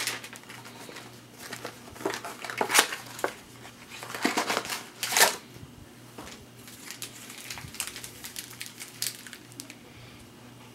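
Packaging of a boxed baseball-card set being opened and handled: irregular rustling and crinkling in short bursts with small clicks, busiest in the first five seconds, then fainter scattered taps.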